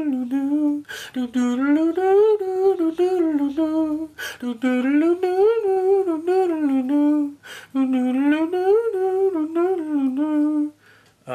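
A man humming a melody as end-screen music. It comes in four rising and falling phrases, with a quick breath between them, and stops near the end.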